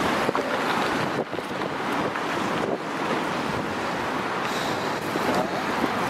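Wind blowing across the camera microphone, a steady rushing noise.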